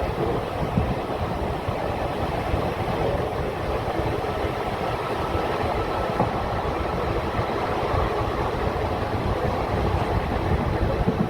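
Steady rumble of a passenger train running along the track, the wheel-on-rail noise of a moving Indian Railways train heard from on board.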